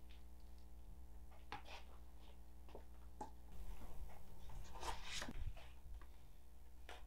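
Soft rustling and handling of things in a cardboard box: a few light clicks and paper rustles that get busier for a couple of seconds in the middle, over a steady low room hum.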